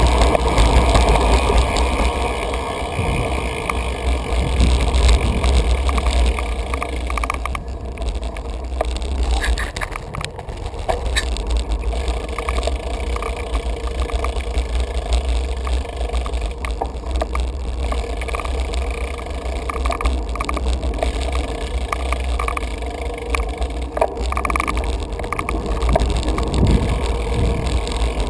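Bicycle riding along with the tyres running over pavement, wind rumbling on the camera's microphone, and scattered small clicks and rattles.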